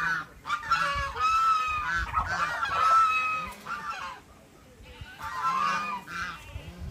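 Domestic geese honking repeatedly, several birds calling over one another, with a short lull about four seconds in before the honking starts again.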